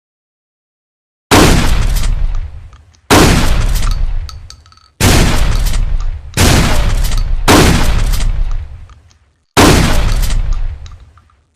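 Six trench-shotgun blasts, irregularly spaced over about eight seconds. Each shot is a sharp bang that trails off in a long echoing decay.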